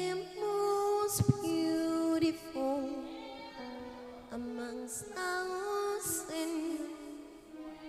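A woman singing a slow melody in long, held notes with vibrato and gliding pitch, with no clear words.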